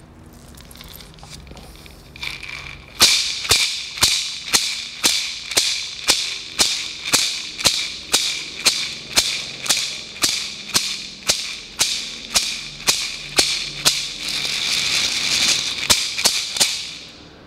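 Shamanic gourd rattle (chocalho) shaken in a steady beat of about two shakes a second, starting a few seconds in. Near the end it changes to a fast continuous shake, then stops.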